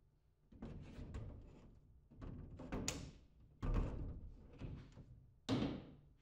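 Irregular hollow knocks and light clatter of a twin-wall polycarbonate lid panel in its aluminium frame being handled and set onto the cold frame, about half a dozen thuds with short rattles.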